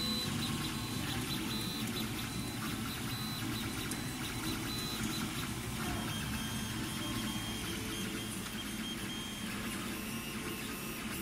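MD-4C FDM 3D printer running a print, its stepper motors driving the print head along the gantry: a steady mechanical running noise with thin high whines that shift in pitch partway through.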